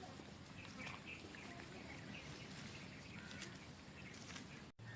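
Faint outdoor ambience: scattered short bird chirps over a steady hiss. The sound drops out for a moment near the end.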